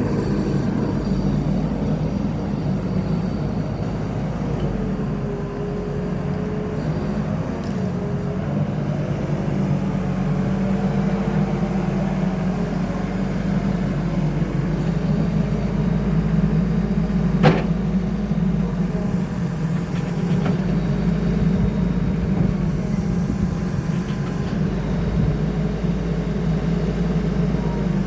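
Diesel engine of a Caterpillar 308D CR mini excavator running steadily, with fainter tones above the engine note that shift in pitch. A single sharp knock comes about two-thirds of the way through.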